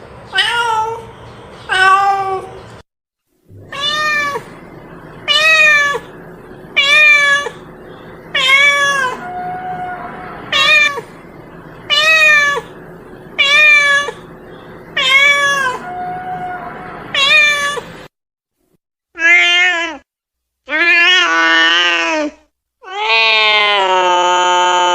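Domestic cat meowing over and over, about a dozen short meows one every second and a half or so. After a brief gap come a few longer, drawn-out meows, the last held for about two seconds.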